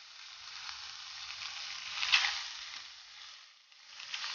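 Raw pork and pork fat pieces sizzling in a hot, dry stainless steel pan, with no oil added, as the fat starts to render. There is one sharp crackle about two seconds in, and the sizzle dies away briefly near the end before picking up again.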